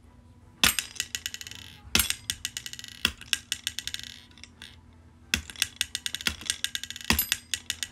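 A mini desktop strongman (high-striker) toy struck five times: each strike is a sharp snap followed by a fast, fading rattle of small clicks with a light metallic ring as the bead flies up and falls back down the tower.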